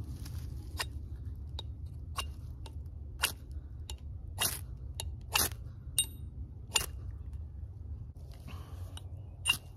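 Ferro rod scraped hard along the squared 90-degree edge of a Nedfoss 15-inch hatchet's steel head to throw sparks: about a dozen short, sharp rasping strikes, one or two a second, then a pause of about two seconds before a last strike near the end.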